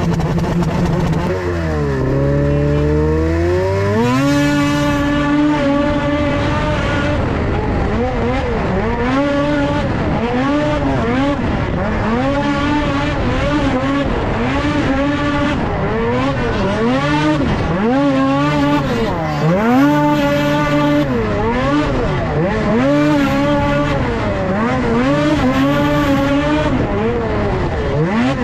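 Racing snowmobiles' two-stroke engines, several at once, revving up and falling back again and again as the sleds are throttled around a snocross track. The pitch holds steady at first, then drops and climbs about two seconds in.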